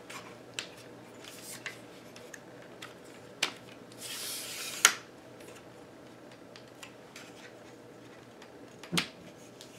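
Leg locks on a mid-size NexxTech tripod clicking as the legs are opened, with a short sliding rub of a leg section about four seconds in that ends in a sharp snap, and a few fainter clicks of handling.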